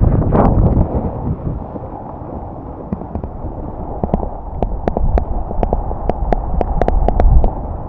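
Snowboard sliding and scraping down a groomed piste, with wind rumbling over the microphone. From about four seconds in, a quick, irregular run of sharp clicks joins the scraping.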